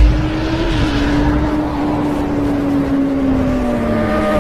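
Motorcycle engine sound effect, held at high revs with a rushing noise over it, its pitch sagging slowly. A heavy low boom hits at the very start.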